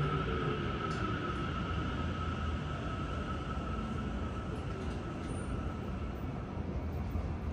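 Tokyo Metro 9000 series train's Mitsubishi IGBT-VVVF inverter and traction motors whining under braking, heard from inside the car over steady wheel and running rumble. The whine glides down in pitch as the train slows into a station.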